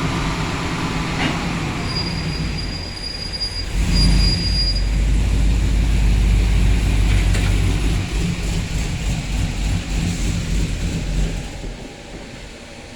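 1978 Chevrolet K10 pickup's tuned 6.2-litre V8 with a stage 3 truck cam running hard. It gets louder about four seconds in, holds, and drops off shortly before the end.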